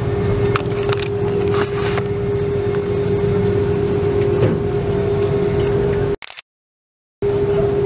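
Steady airliner cabin noise: an even drone from the engines and airflow with a constant hum running through it, and a few light clicks in the first two seconds. The sound cuts out completely for about a second near the end.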